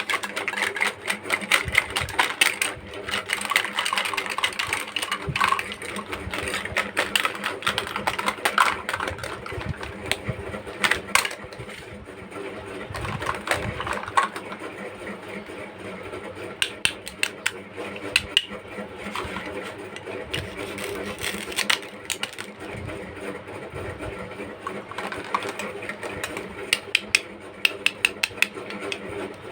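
Plastic toy pieces being handled, with many quick clicks, taps and rattles in fast, uneven succession.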